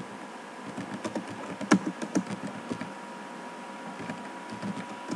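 Computer keyboard being typed on: irregular runs of key clicks, with one louder key strike about a third of the way in. A faint steady high-pitched hum sits underneath.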